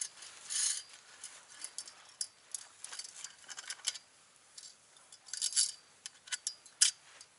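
Metal tripod grill poles and fittings clicking, clinking and scraping as a tight ring is worked onto a pole: a scattered run of sharp clicks with a few longer scrapes.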